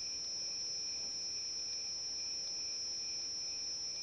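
A steady high-pitched whine with a fainter lower tone beneath it, unchanging throughout, over faint room hiss.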